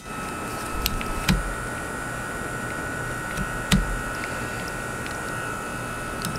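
A few light clicks and one louder knock, about three and a half seconds in, from a bracketless J-hook wiper blade being handled and set against its wiper arm and the windshield, over a steady background hum with a faint constant whine.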